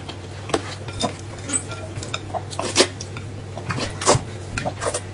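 Eating utensils clinking and scraping against bowls and plates in irregular short knocks, a few with a brief ring.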